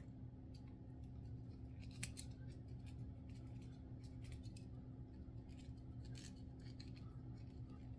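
Faint clicks and rubbing as the two halves of a yo-yo are screwed together onto the spacer, tightened until they stop.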